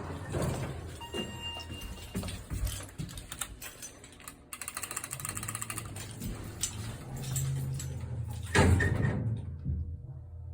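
Elevator doors moving and clattering over a low steady hum, with a louder bang about eight and a half seconds in; these are doors known to have recurring faults.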